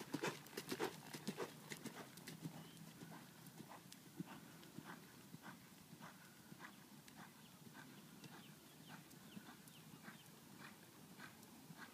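Hoofbeats of a horse loping on arena dirt: loud, close strikes in the first couple of seconds as it passes near, then fainter, even beats as it moves away.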